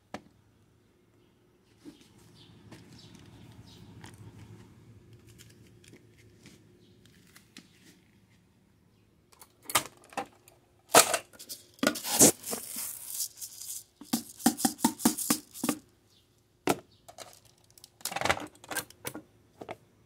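Raw rice being dispensed from a push-button plastic dry-food dispenser into a plastic bowl, rattling and clicking in quick runs. It starts about halfway through and goes on for several seconds, with a second short run near the end.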